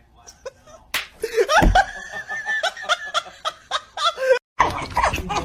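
People laughing and snickering, with a sharp click about a second in and a brief cut to silence about four and a half seconds in.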